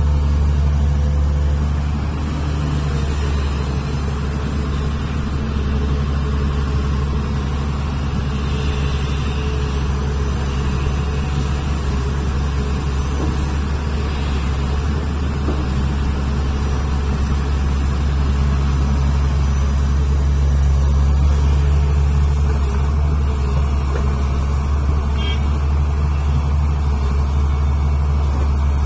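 Hitachi Zaxis 470H excavator's diesel engine running under load with a steady low drone, swelling slightly about two-thirds of the way through, as the machine digs, swings and loads a dump truck.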